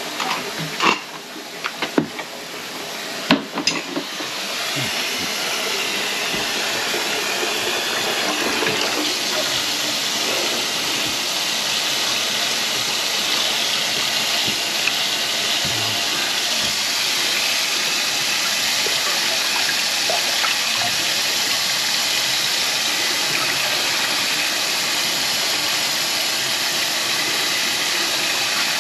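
Kitchen faucet running steadily into a stainless steel sink. The running water swells in about four seconds in, after a few sharp clanks of tools being handled.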